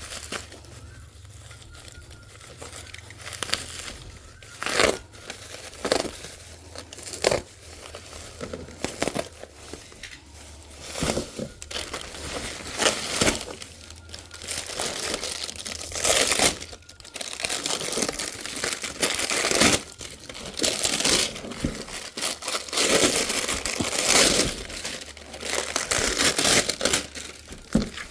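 Packaging being handled and unwrapped: irregular crinkling, rustling and tearing as the wrapping comes off an aftermarket exhaust.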